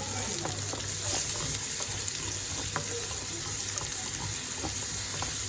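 Oil sizzling in a pan as onions, curry leaves and ginger-garlic paste fry, a steady hiss dotted with small crackles.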